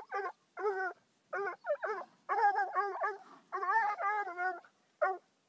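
Young Bluetick coonhound barking and yelping at a raccoon in a live trap: a rapid string of short, high, wavering calls in quick clusters.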